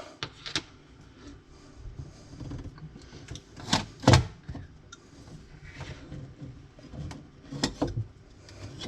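Scattered clicks and knocks of hands working plastic dishwasher parts and the flood switch's wire connector as it is unplugged, the two loudest knocks about four seconds in.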